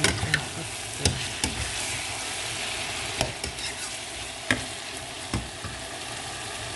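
Chopped okra with tomato and onion sizzling in oil in a pan, stirred with a metal spoon that knocks against the pan about six times.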